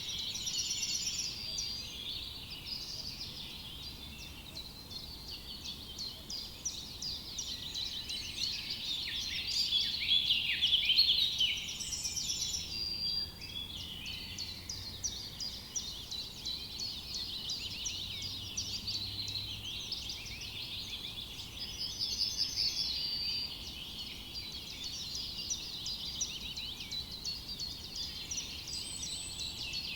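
Dense chorus of many small forest songbirds chirping and trilling without a break, with a louder flurry of calls about ten seconds in.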